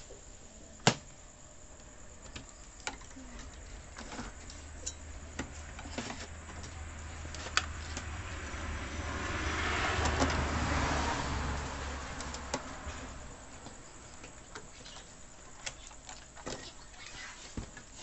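Scattered clicks and knocks of a CRT TV's circuit board and plastic chassis being handled, the sharpest about a second in. In the middle a rushing noise swells up over several seconds and fades away again.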